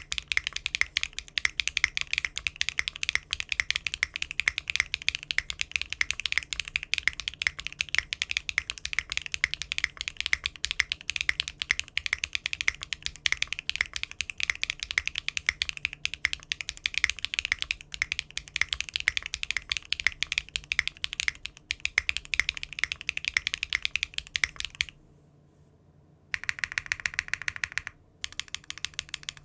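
Mechanical keyboard with Cherry-profile keycaps being typed on fast and continuously, a dense run of key clacks. After a short pause near the end come two brief bursts of rapid keystrokes.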